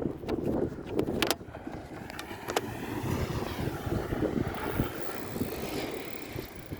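Gusty wind buffeting the microphone over beach surf, with a few sharp clicks in the first few seconds. From about three seconds in, a broad whoosh whose pitch sweeps down and back up swells and fades.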